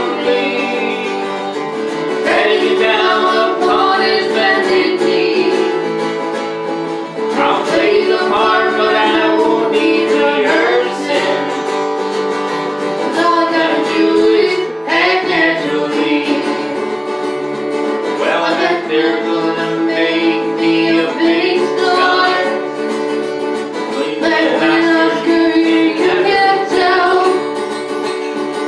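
Live folk song: a woman singing over strummed and plucked acoustic guitar.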